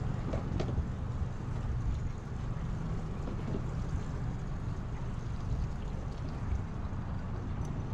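Boat's outboard motor running steadily at low, idle speed, a low hum as the boat moves slowly out of its slip.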